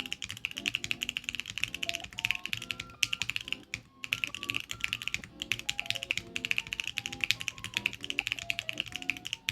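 Fast typing on a Mode Sonnet mechanical keyboard with Jwick Black Lotus linear switches: a dense, continuous run of keystrokes with a short pause about four seconds in. Background music plays under it.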